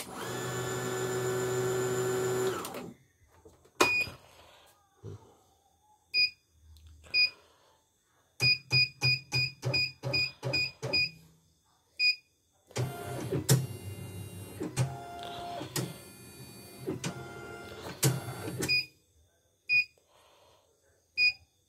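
Short high electronic beeps from a CNY portable embroidery machine's control panel as its keys are pressed, with a quick run of about ten beeps a little before halfway. A steady tone-filled sound fills the first few seconds, and a busier stretch of mixed tones and clicks runs for several seconds near the end.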